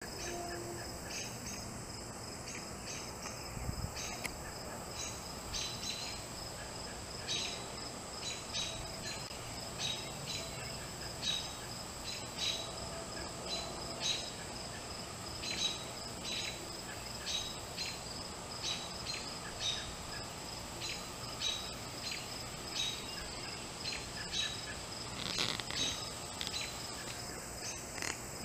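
Steady high-pitched drone of insects, with short chirps repeating every second or so.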